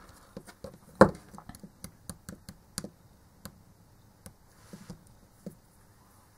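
Small clicks and taps of hands handling hand tools and a small plastic SATA connector housing on a workbench mat, with one louder knock about a second in.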